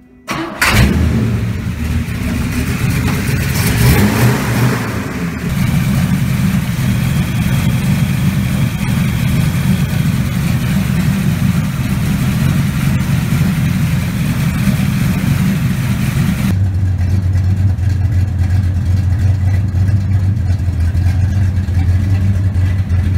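1970 Chevrolet Chevelle's engine fires up about half a second in, revs briefly around four seconds, then runs steadily. About two-thirds through, its sound turns duller and lower.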